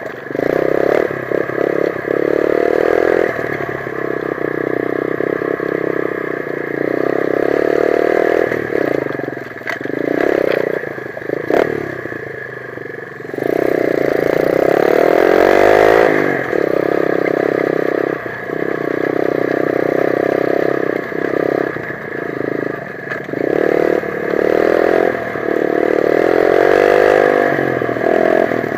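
125 cc dirt bike engine revving up and down in repeated surges as the throttle is opened and shut, with clattering knocks from the bike over rough ground.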